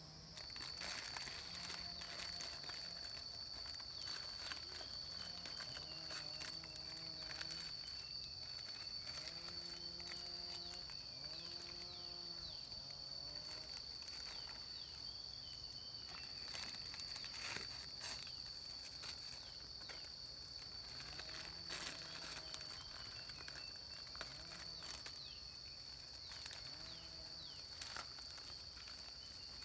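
A steady high-pitched insect drone, with scattered clicks and crinkles as instant-noodle packets are torn open and handled by a wood fire. A few faint drawn-out calls rise and fall in pitch now and then.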